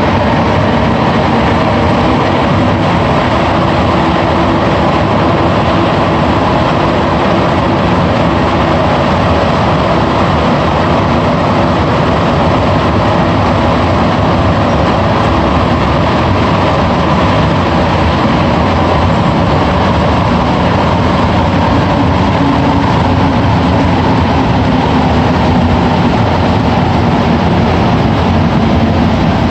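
Montreal metro AZUR train heard from inside the car, running through the tunnel on its rubber tyres: a loud, steady roar of tyres and traction motors.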